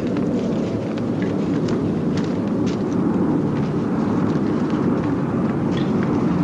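Drone of a large formation of propeller-driven bomber aircraft passing overhead: a steady, dense low rumble that grows slightly louder, with faint scattered clicks over it.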